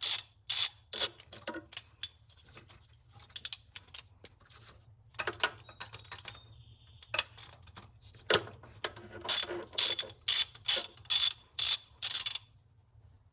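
Socket ratchet wrench with a 12mm deep socket and extension clicking as it backs out intake-manifold bolts. The clicking comes in bursts of about two to three strokes a second, with a pause between roughly two and five seconds in and a busier run from about eight to twelve seconds in.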